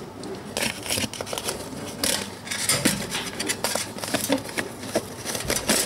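Crinkling and crackling of aluminium-foil-faced oven insulation handled while its twisted wire ties are undone, in irregular crackles and rustles.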